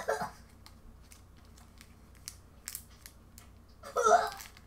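Faint crinkling and crackling of a sour-candy wrapper being handled and opened, scattered small clicks, with a louder rustling burst about four seconds in.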